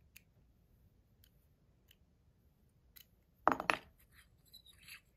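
Metal parts of an AntDesign Comma 2.0 fidget being handled: a few faint light ticks, then, about three and a half seconds in, a loud ringing metallic clink followed by about a second of metal pieces clinking and scraping together.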